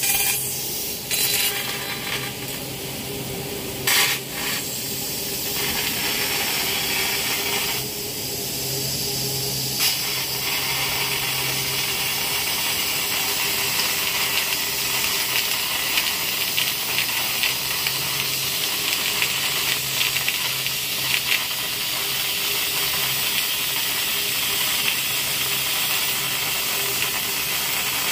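Bodor P6 12 kW fiber laser cutter cutting 30 mm metal plate: a steady loud hiss from the cutting jet and the shower of sparks, over a low machine hum. The hiss wavers and dips a few times in the first ten seconds, then runs evenly.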